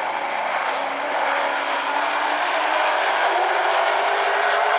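A field of street stock race cars running laps on an oval track, several engines at full throttle overlapping in a steady drone, pitch drifting slowly as the cars pass.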